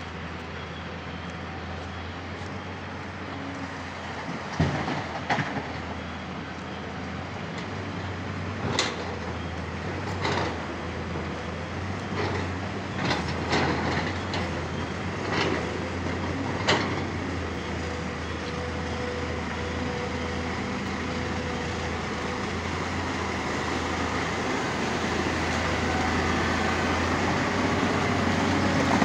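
Tata Hitachi 200 excavator's diesel engine running steadily while it loads a tipper truck, with a string of sharp clanks and clatters from about 4 to 17 seconds in as rock is dropped into the steel truck bed. The engine grows louder near the end.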